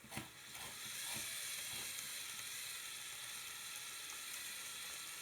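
Lego Technic drivetrain driven by two Power Functions XL motors, running in high range: a steady, hissy whir of small electric motors and plastic gears that starts about half a second in.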